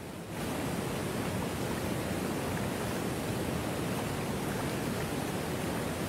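Steady rushing hiss of a small waterfall, an even wash of noise that steps up in loudness a moment in and then holds.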